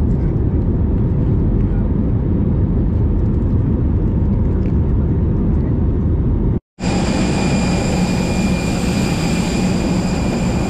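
Steady low rumble of a jet airliner cabin in flight. About two-thirds of the way through it cuts off abruptly and gives way to a louder jet whine on the apron, several steady high tones over a rumble, from a parked airliner.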